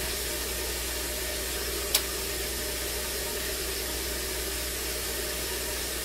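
A steady hiss, with one sharp click about two seconds in as the glass pouring cup taps a metal salve tin.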